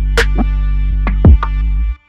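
Background music with a steady beat and heavy kick drum over a sustained bass line, cutting off abruptly near the end.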